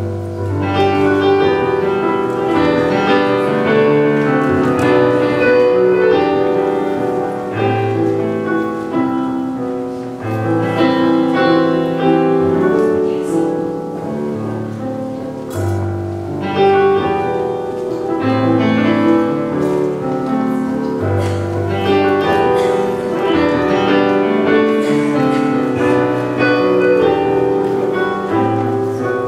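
Piano being played: a continuous run of sustained chords, with low bass notes struck every couple of seconds.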